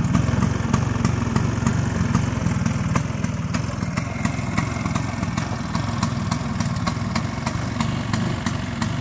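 1964 Vespa 150 scooter's single-cylinder two-stroke engine idling steadily.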